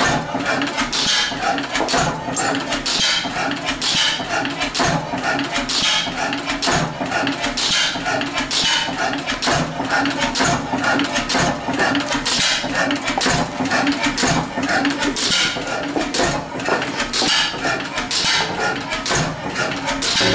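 1911 Deutz E3 stationary gas engine with a horizontal cylinder running steadily, a dense clatter of valve gear and ignition clicks over a low hum, with a sharper beat about once a second.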